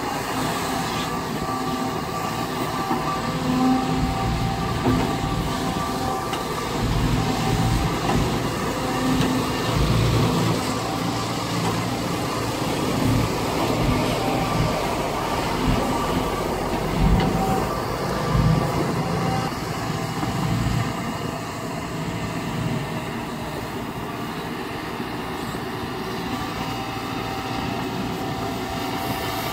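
Kobelco SK140-8 hydraulic excavator working as it digs sand: its diesel engine and hydraulics run steadily, with repeated swells in the engine's note as the machine takes load.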